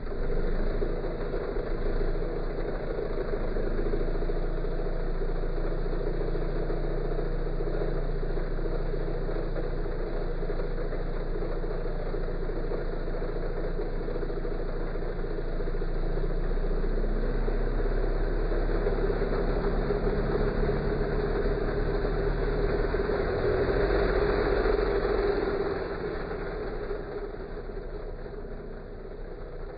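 Small engine driving a CVT, running and revved up and back down several times. The longest, loudest rev comes late, after which it settles back toward idle.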